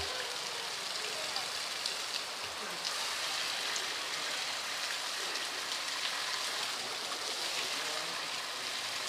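Rain falling steadily, an even hiss of rain on the ground.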